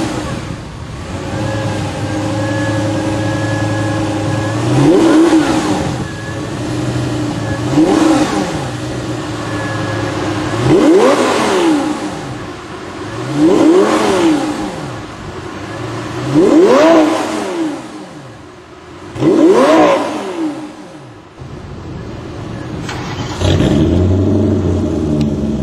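Sports-car engine with a performance exhaust idling and revved in six quick throttle blips, each rising and falling in pitch, about three seconds apart. Near the end a different idle takes over.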